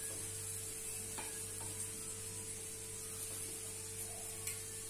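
Oil-brushed aloo paratha frying on a hot tawa: a steady, faint sizzle, with a couple of light ticks from the hand or spoon on the griddle.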